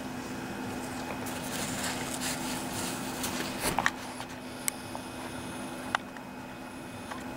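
Steady low hum of workshop background noise, with a few sharp clicks from handling: a small cluster about four seconds in, then single clicks near five and six seconds.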